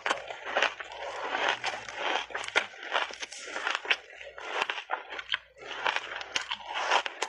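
Ice coated in milk powder and matcha powder being bitten and chewed right at a lapel microphone: a rapid, irregular run of sharp crunches and crackles.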